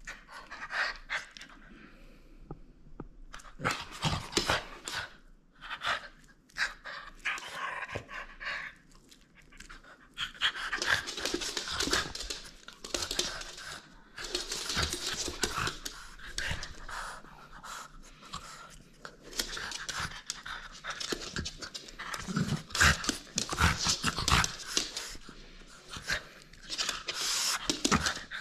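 French bulldog breathing hard in irregular noisy gusts while tugging on a rubber ring toy. The gusts come in short bursts at first and then in long, dense runs.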